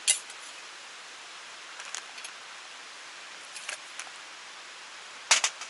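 Steady rushing of a stream and waterfall, with sharp knocks and taps: one at the start, a few faint ones in the middle, and a loud quick run of three near the end.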